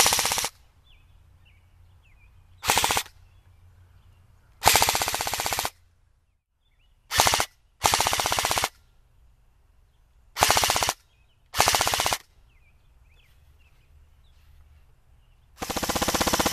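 Airsoft electric gun (AEG) with a freshly assembled version 2 gearbox, run on a 9.6 V battery, firing full-auto: a rapid rattle of shots in about seven short bursts, each a fraction of a second to about a second long. A longer burst starts near the end.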